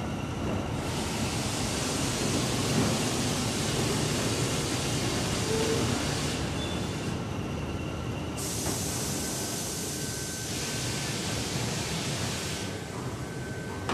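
Industrial machinery of a melamine paper laminating line running with a steady low drone and rumble. A loud hiss switches on about a second in, cuts out for a couple of seconds midway, and comes back until near the end.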